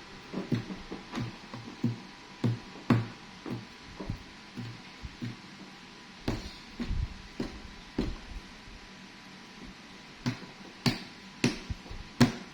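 Background music: a light tune of short, separate notes, each starting sharply and fading quickly.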